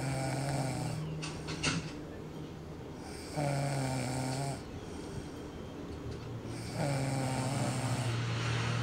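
A sleeping man snoring: three long, droning snores a few seconds apart, the last one the longest.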